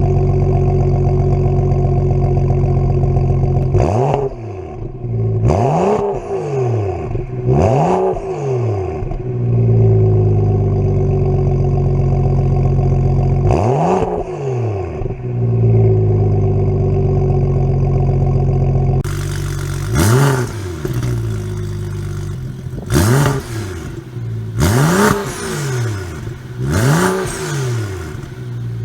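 BMW N55 turbocharged inline-six with a catless downpipe, idling and being blipped in free revs, each rev rising quickly and falling back to idle. There are four revs in the first half. About two-thirds of the way in the sound turns hissier, and revs follow roughly every two seconds.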